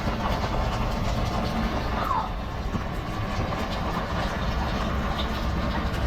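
Steady city alley ambience: a continuous low rumble under an even wash of noise.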